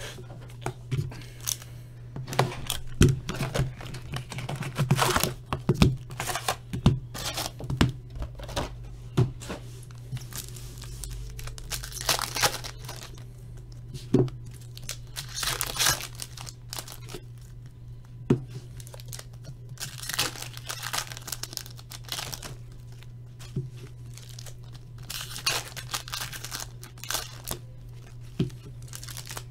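Packs of Fleer Showcase hockey cards being torn open, their wrappers ripping and crinkling in repeated bursts, with short sharp clicks and taps of the cards being handled, over a steady low hum.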